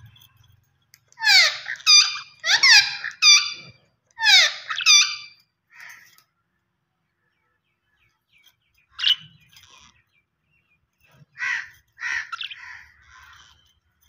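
Budgerigars calling: a quick run of about five calls, each falling in pitch, then a single short call about nine seconds in and a few more chattering calls near the end.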